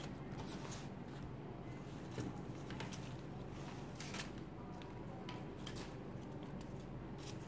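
Faint handling noises: a few scattered light rustles and clicks, over a steady low room hum.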